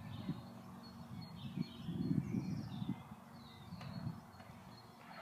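Faint birds chirping and singing, with a low, uneven rumble underneath that swells around two to three seconds in.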